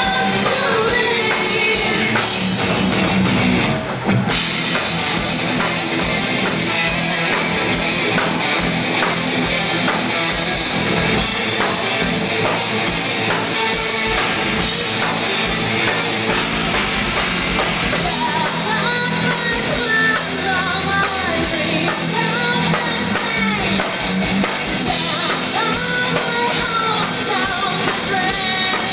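Live rock band playing loud, with drums, electric guitars and a woman singing lead vocals, heard from within the crowd. The music drops out briefly about four seconds in, and the singing comes through clearly in the second half.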